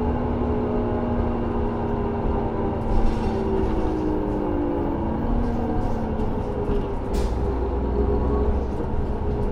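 Cummins ISL straight-six diesel and Allison automatic transmission of a 2003 New Flyer D40LF transit bus running under way, heard from inside the bus, its engine tone drifting and shifting in pitch. Light interior rattles and ticks join from about three seconds in, with one sharp click about seven seconds in.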